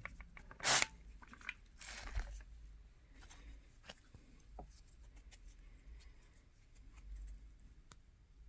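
Two quick squirts from a hand spray bottle misting water onto a rock slab to wet the surface and bring out its sheen, the first short and sharp, the second about a second later and softer, followed by faint clicks of the stone being handled.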